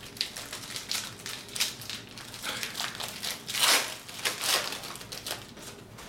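Foil Yu-Gi-Oh booster pack wrappers crinkling and rustling in a string of short bursts, loudest about three and a half to four and a half seconds in.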